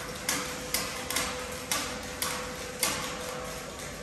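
A regular clack about twice a second, each with a short ringing tail, over a steady hum.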